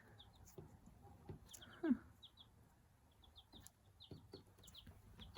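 Young Australorp, Light Brahma and Silkie bantam cross chick peeping softly: short high cheeps in quick pairs and threes, repeated again and again.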